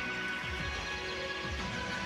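Music for a pairs figure-skating programme, sustained notes playing steadily.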